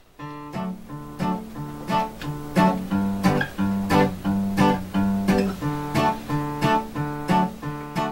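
Background music: acoustic guitar strumming chords in a steady rhythm, about three strums every two seconds, with no singing. It starts out of silence right at the beginning.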